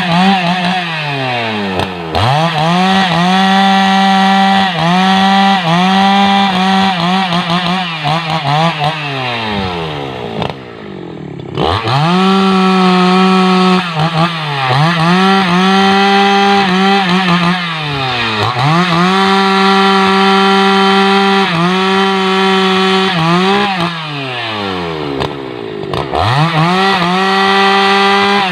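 Husqvarna 288XP two-stroke chainsaw cutting rubberwood logs at full throttle, its pitch sagging under load and climbing back again and again. About ten seconds in it drops briefly to idle, then revs back up.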